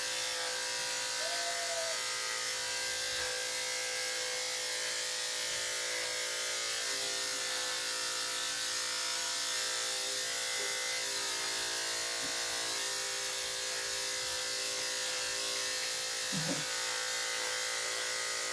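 Electric dog grooming clippers with a number 10 blade running steadily, trimming the hair around a dog's muzzle and nose.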